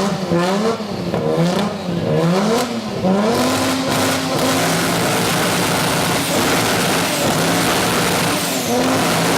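Car engine with a very loud exhaust, revved in several quick blips, then held at steady high revs for several seconds with a brief dip near the end.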